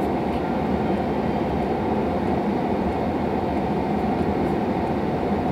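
Steady road noise of a car driving on a wet, slushy road, heard inside the cabin: an even rumble of tyres and engine with no breaks.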